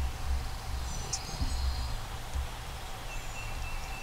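Spring woodland ambience: a steady low rumble under a short burst of high bird chirps about a second in, and a faint thin high tone near the end.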